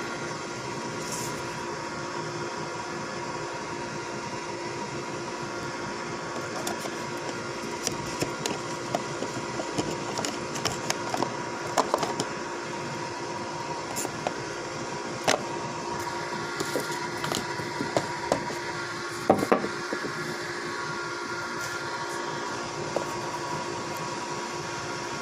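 Scattered light clicks and taps from a smartphone and its packaging being handled, mostly through the middle stretch, with a sharper knock or two, over a steady electrical hum.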